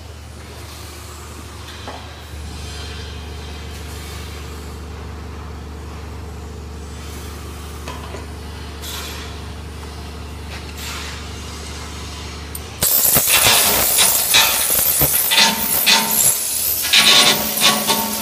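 Steady low hum, then about thirteen seconds in a flux-cored welding arc strikes and crackles and sputters loudly for about five seconds before stopping.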